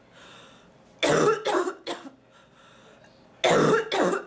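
A woman coughing in fits: a run of harsh coughs about a second in, then another loud burst of coughs near the end.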